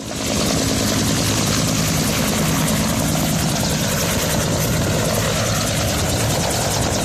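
Water-bomber helicopter flying close, its rotor giving a steady fast chop over the engine noise; the sound fades in just at the start.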